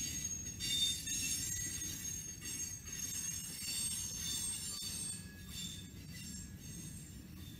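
Freight cars, covered hoppers and boxcars, rolling past on steel rails: a steady low rumble of wheels on track, with thin high-pitched squealing tones from the wheels that waver and come and go, easing off a little in the second half.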